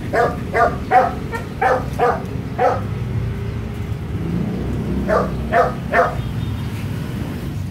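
A small dog barking: a quick run of about seven sharp, high barks, then three more about five seconds in.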